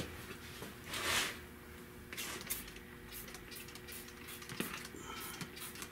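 Hand trigger spray bottle squirting wax and grease remover: a short hiss of spray about a second in, then fainter, softer squirts.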